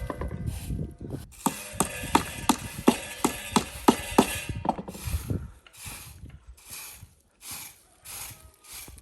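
Rapid rhythmic knocks, about three a second, for roughly the first half, then a series of short scraping strokes at a slower, even pace.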